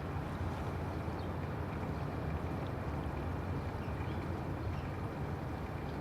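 Steady low rushing outdoor background noise, with a few faint, short high chirps.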